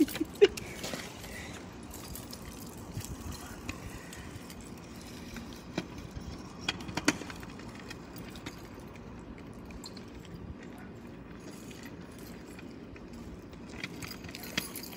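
Keys hanging from a belt loop jangling as the man moves, with a few sharp clicks near the start and again about seven seconds in, over steady outdoor background noise.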